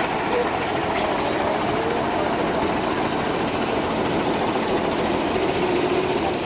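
Oliver Standard 88 tractor engine running steadily at low speed as the tractor drives slowly past close by.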